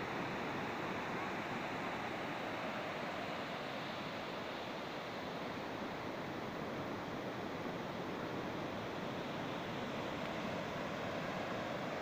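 Ocean surf washing onto a beach: a steady rush.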